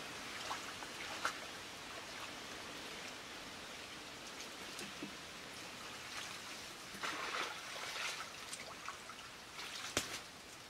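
Shallow muddy water sloshing and splashing as people wade and grope in it by hand, over a steady trickling hiss of water. Scattered small splashes, with a sharper one near the end.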